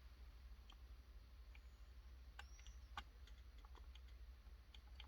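Near silence broken by a few faint, scattered clicks, the clearest about three seconds in: a car door speaker clicking as multimeter probes on the ohms range touch its terminals, a sign that its voice coil is intact and the speaker works.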